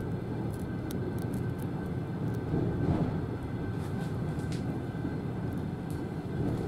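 Passenger railway carriage rolling along the track, heard from inside its rear vestibule: a steady low rumble of wheels on rails, with scattered short sharp clicks as the wheels run over the station's switches and rail joints.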